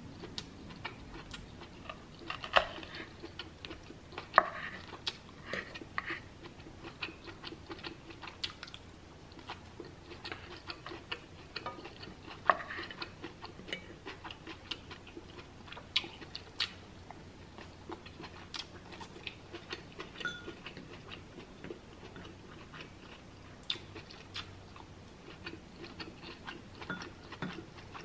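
Close-up eating sounds: chewing and wet mouth clicks, with irregular sharp ticks and now and then a wooden spoon and fork scraping through food in a pan. A few clicks stand out louder than the rest.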